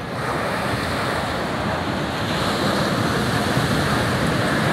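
Pacific surf breaking and washing in, a steady rushing noise that grows louder just after the start, with wind buffeting the microphone.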